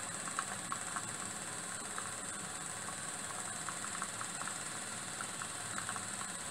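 Single-cylinder, double-acting model steam engine running under steam, its boiler fired by a butane torch: a steady high hiss with light, irregular clicks.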